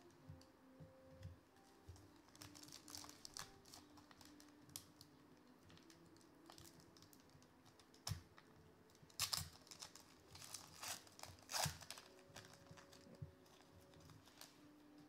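Foil wrapper of a trading-card pack being torn open and crinkled, with light clicks of cards being handled. The crackling is loudest in a few bursts just past the middle, after a sharp snap.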